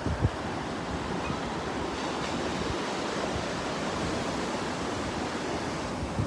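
Ocean surf washing in steadily, with wind gusting on the microphone near the start.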